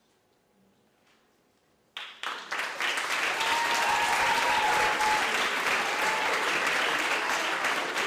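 About two seconds of near silence as the piece ends, then audience applause starts suddenly about two seconds in and carries on steadily.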